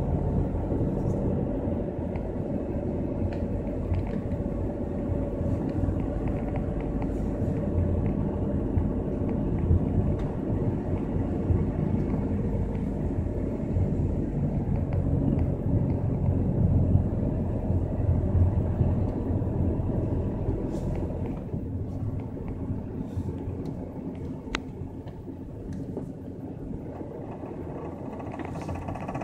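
Car driving slowly: a steady low engine-and-road rumble that grows quieter about three-quarters of the way through.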